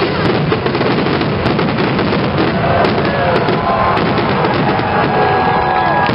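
Aerial fireworks display: a dense, continuous barrage of bangs and crackling from many shells bursting at once.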